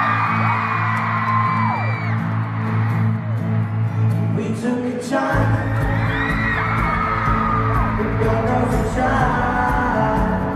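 A boy band singing a pop ballad live over the backing band, with a crowd screaming along, heard from the audience. Deep bass fills in about five seconds in.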